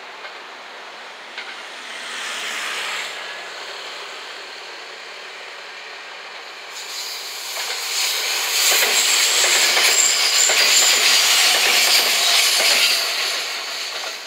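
JR West 227 series electric train passing close by: the rail noise builds from about halfway, peaks with rapid wheel clicks and a high squeal from the wheels on the curve, then fades as the train moves away.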